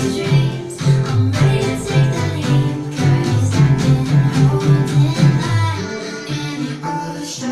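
Music played back through a home-theater speaker set for a sound test: a guitar-led track with plucked strings and a strong bass line. The bass drops out about six seconds in.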